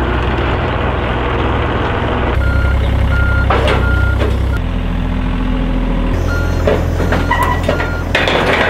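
John Deere 35G mini excavator's diesel engine running under load as it tracks up the trailer ramps, its note shifting several times, with its travel alarm beeping in two runs of a few short beeps. Near the end there is a burst of louder clattering noise.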